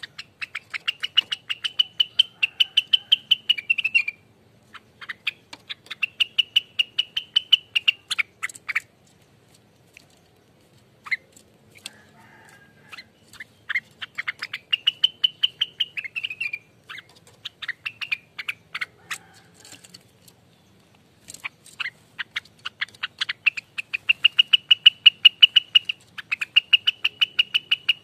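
Rengganis songbird singing a 'ropelan' song: long runs of very fast, sharp repeated notes, several per second. The song comes in phrases a few seconds long, with short pauses and a few single notes between them.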